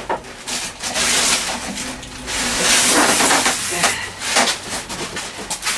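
Packaging being pulled apart while a heavy lathe is unpacked: a run of scraping, rustling and crackling from polystyrene packing and cardboard, loudest about halfway through.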